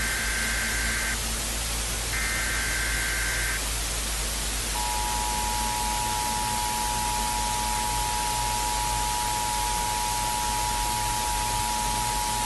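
Emergency Alert System tones over steady static hiss. Two short warbling data bursts of the digital header come first, followed about a second later by the two-tone attention signal, a steady dual tone held for about eight seconds.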